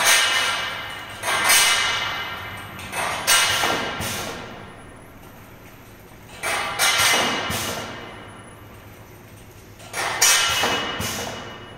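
Stainless steel tube labelling machine in a test run, handling long steel tubes: a series of sudden mechanical clatters every one to three seconds, each starting sharply and fading over a second or two, over a steady low machine hum.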